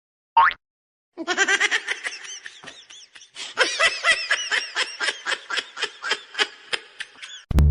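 A person laughing in a long run of quick, high-pitched bursts, after a short squeal about half a second in.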